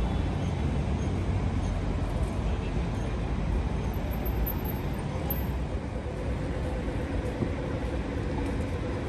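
Street ambience dominated by a steady low rumble of road traffic; a faint steady engine hum joins about halfway through.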